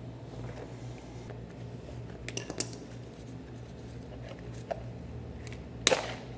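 Tin snips cutting through a plastic air dam, giving a few sharp snaps about two and a half seconds in, then a louder clack near the end, over a steady low hum.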